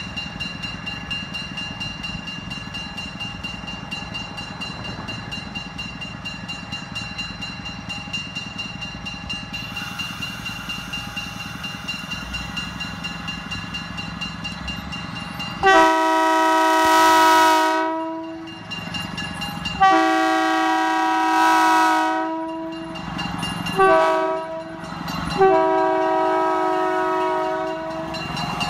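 Budd rail diesel car's diesel engine running steadily, then its multi-note air horn sounding two long blasts, a short one and a long one: the grade-crossing warning signal.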